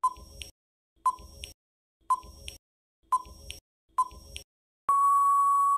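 Quiz countdown timer sound effect: five short beeps, one a second, then one long steady beep as the count runs out.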